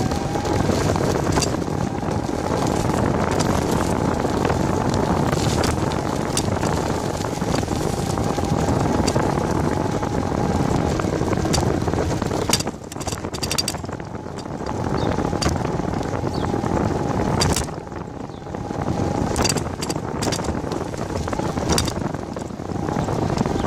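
Wind buffeting the microphone of a bicycle-mounted camera while riding, mixed with tyre noise on the road. Sharp clicks and knocks come at several points, mostly in the second half, as the bike goes over rough, patched pavement.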